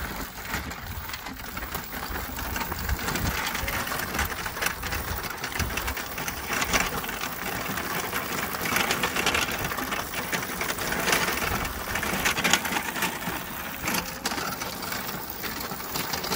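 Electric go-kart, driven by a car alternator converted into a motor, running along a gravel track: a steady crackling rattle of its knobby tyres and drive on the loose gravel.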